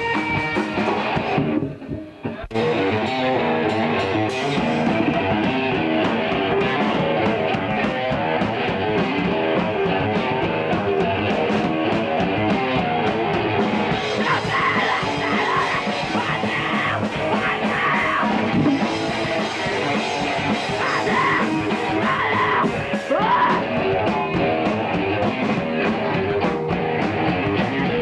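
Loud rock music with guitar and drum kit playing without a let-up, cutting out briefly about two seconds in.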